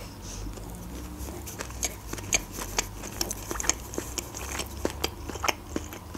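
Close-miked chewing of a mouthful of burger: many soft, irregular wet mouth clicks and small smacks.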